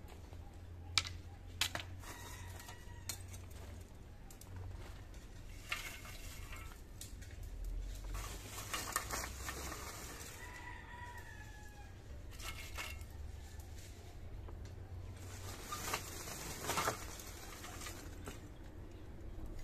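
A rooster crowing faintly, twice: once about two seconds in and again about ten seconds in, each call sliding down in pitch. A few sharp clicks come in the first few seconds.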